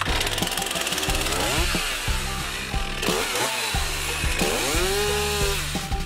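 Stihl two-stroke chainsaw cutting into a tree trunk, its engine pitch rising and falling several times as the chain bites into the wood, with background music underneath.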